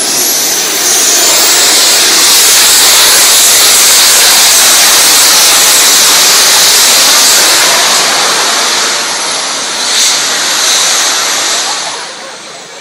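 Small jet turbine worn as a backpack, running at full power: a loud rushing blast with a high steady whine, which winds down about twelve seconds in. A short sharp burst comes through about ten seconds in.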